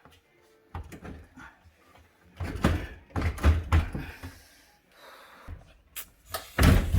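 Repeated knocks and thumps from a built-in dishwasher being tugged and shoved in its cabinet opening. It is stuck tight, held by a clip that has not been released. A few light clicks come first, then heavier thumps about two seconds in and again near the end.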